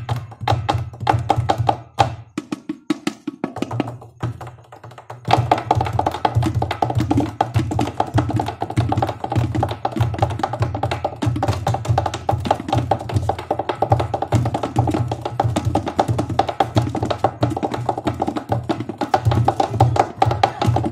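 Improvised drumming with bare hands on a blue plastic barrel and a small tin, a fast, dense beat of low thuds and sharper taps. The beat thins out for a couple of seconds a few seconds in, then runs on without a break.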